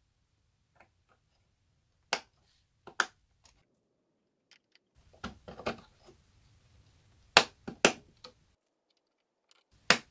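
DDR3 memory modules being pressed into a motherboard's DIMM slots, the slot latches snapping shut as each module seats. About ten sharp clicks come in small groups, some in quick pairs, with near quiet between.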